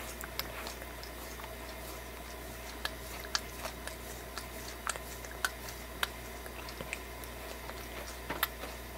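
Domestic cat grooming, licking its front paw: irregular soft wet clicks of the tongue on the fur, with a few louder ones in the middle and near the end.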